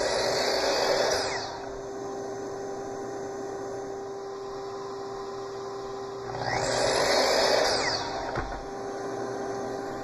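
Makita LS1018 10-inch sliding compound miter saw cutting a scrap piece twice while a bump stop is set up. Each cut lasts about two seconds, the motor winding up and then stopping quickly, and the second starts about six and a half seconds in. A steady hum runs underneath.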